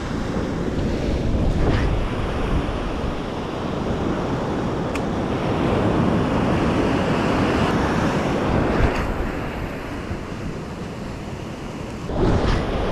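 Ocean surf breaking and washing up a sandy beach, a continuous rushing that swells and eases, with wind buffeting the microphone.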